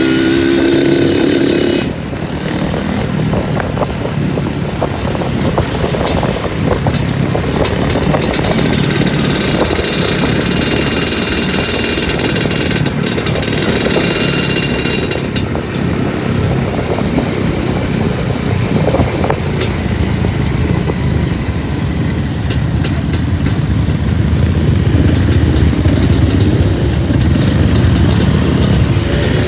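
Two-stroke trail motorcycle engine running under way over rough ground, its pitch rising and falling, with scattered clicks and knocks. The sound changes abruptly about two seconds in.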